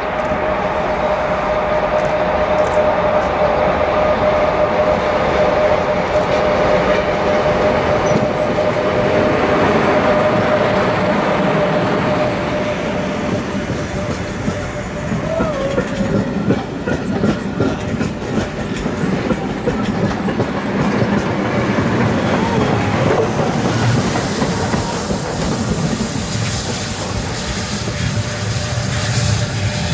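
A train rolling along the rails, its wheels clicking over the rail joints. A steady high squeal runs through the first half and then fades out.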